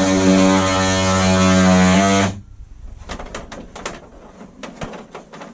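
Handheld power tool cutting to enlarge a switch opening in an RV wall panel, its motor giving a loud steady buzz that cuts off suddenly about two seconds in. Light clicks and rattles follow as the tool and the panel are handled.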